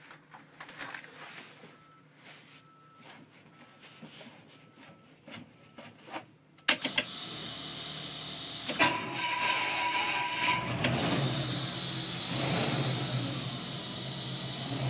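The gas pedal of a 1980 Ford fire truck is pumped to prime the carburettor, with faint clicks. About halfway through, the cold engine starts suddenly and keeps running, revved with the pedal. A steady whine sounds for about two seconds soon after it catches.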